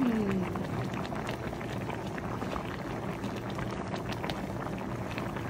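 Shabu-shabu hot pot broth boiling in a metal pot, a steady bubbling with many small pops.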